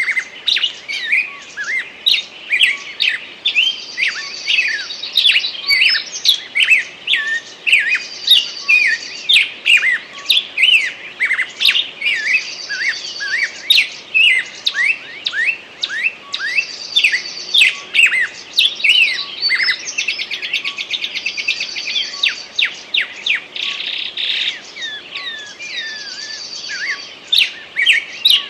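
Several forest songbirds singing at once: a dense run of quick chirps and sweeping whistled notes, with a high trill that comes back about every four seconds.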